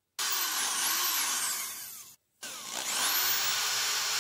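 Corded electric drill boring into a softwood board, its pitch dipping and recovering as the bit bites. Past the middle it winds down and cuts out briefly, then spins back up with a rising whine and runs steady.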